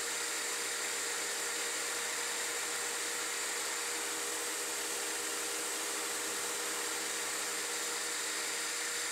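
9x20 benchtop CNC metal lathe running, its spindle turning a bracket spacer while a carbide insert cuts it: a steady hum with an even hiss.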